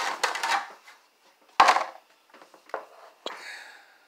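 Handling noise from a chainsaw on a wooden bench. First a scraping slide as its plastic bar cover comes off, then one loud knock midway, followed by a few light clicks and a short rustle.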